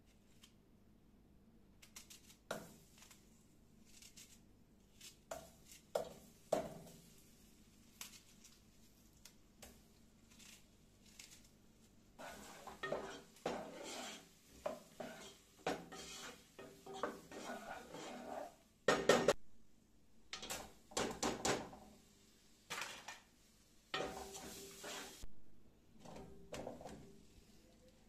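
A wooden spoon stirring and scraping in a nonstick pot, with irregular knocks and clinks of cookware, busiest in the second half.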